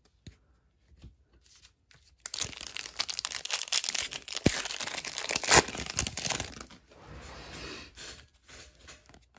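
Plastic wrapper of a Mosaic basketball card pack being torn open and crinkled: a dense crackling rustle with sharp crinkles that starts about two seconds in and lasts about four seconds, then fades to lighter rustling.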